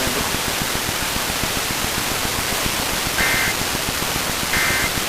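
Steady radio static hiss. About three seconds in, two short Emergency Alert System data bursts sound, each a brief buzzy warble of paired high tones about a second and a half apart. These are the end-of-message code that closes the alert.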